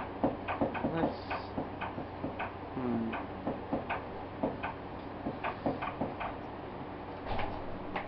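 A string of light, irregular clicks and ticks, about two or three a second, with a brief murmur of a voice about three seconds in.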